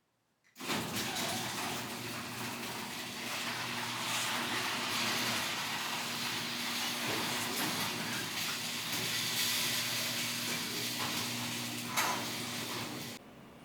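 Mazda Miata's four-cylinder engine running steadily at idle with a broad hiss, back to life after a no-start caused by electrical faults. It comes in abruptly about half a second in and cuts off shortly before the end, with one brief knock near the end.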